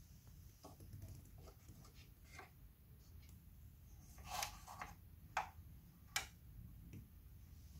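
Small plastic pieces of a Polly Pocket playset clicking and tapping under fingers. The clicks are faint and scattered at first, then a few sharper ones come between about four and six and a half seconds in.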